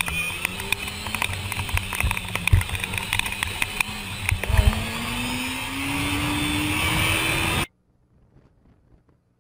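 Motorcycle engine running, its pitch rising steadily from about halfway as the bike accelerates, with sharp clicks and knocks on the helmet-mounted microphone, two of them louder. The sound cuts off abruptly near the end, leaving near silence.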